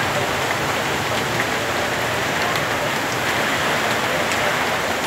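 Rainstorm rain falling steadily, an even hiss with a few sharp drop taps.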